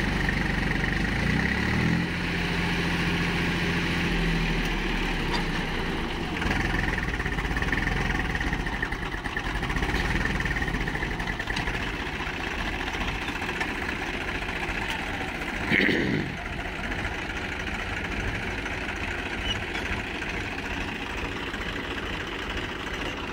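Swaraj tractor diesel engine working under heavy load, pulling a sand-loaded trailer through wet, boggy sand. The engine note shifts a couple of times in the first few seconds. A brief loud sound comes about two-thirds of the way through.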